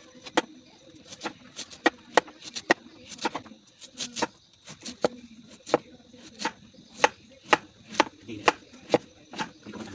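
Large kitchen knife slicing a peeled bamboo shoot by hand. The cuts come as sharp clicks, about two a second and unevenly spaced, some louder than others.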